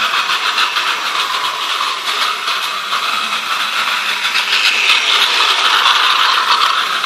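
Battery-powered toy train running: a steady whirring of its small motor and gears with a fine rattle.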